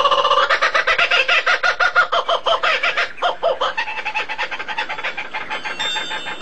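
Bird calls: a fast chattering run of short pitched notes, about eight a second, strongest in the first three seconds, then lower and weaker after a short break, fading toward the end.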